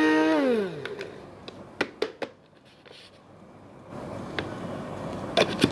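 Small electric grinder motor grinding rice bran at a steady whine, switched off about half a second in and winding down with a falling pitch. Then clicks and knocks as the grinder is handled and its lid taken off.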